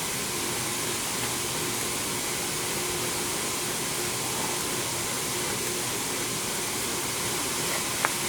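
A small motor running steadily: an even hiss with a faint steady hum, and one short click just before the end.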